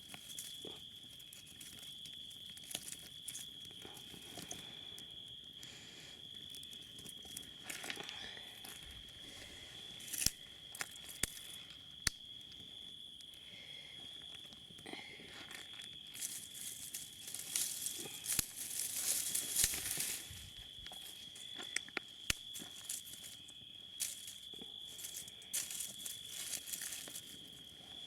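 Wood campfire crackling, with irregular sharp snaps and pops, busiest about two-thirds of the way in. A steady thin high whine runs underneath.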